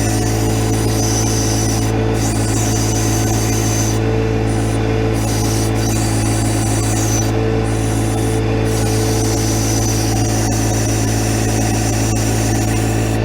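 John Deere 1025R compact tractor's three-cylinder diesel running steadily while the backhoe is worked, with a higher whine coming and going several times.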